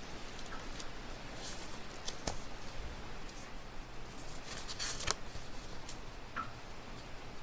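Library ambience: a steady low room hum with scattered small clicks and rustles of things being handled, a sharper knock about two seconds in and a longer rustle around five seconds in.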